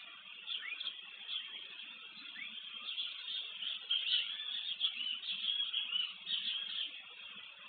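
A chorus of many short chirping animal calls, some of them quick sweeps in pitch, over a steady outdoor hiss; the calls grow busier about halfway through.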